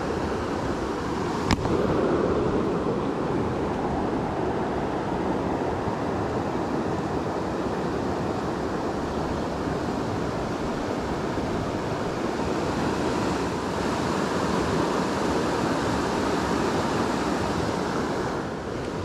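Steady rush of a flooded creek's fast-moving water, with one sharp click about a second and a half in.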